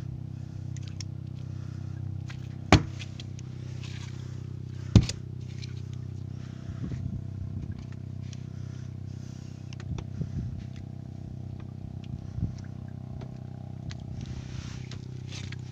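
A small boat's engine running steadily with a low, even hum. Two sharp knocks about three and five seconds in, and a few softer taps and scrapes later.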